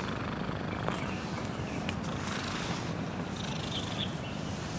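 A sleeping cat snoring, recorded close up: a steady, low, quite loud rumble.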